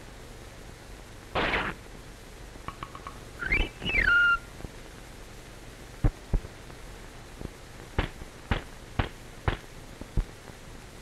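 Cartoon sound effects over a steady soundtrack hiss: a short swish about a second and a half in, then a whistle that glides up and back down. In the second half comes a run of about seven sharp knocks, roughly half a second to a second apart.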